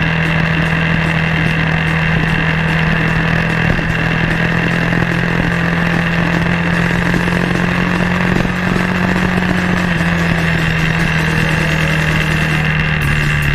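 BMW G650X's single-cylinder engine running at a steady pitch while being ridden, easing slightly lower about ten seconds in.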